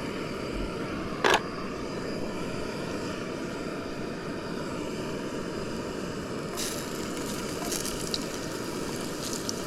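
Chips shallow-frying in hot oil: a steady, dense bubbling sizzle, with one sharp knock about a second in.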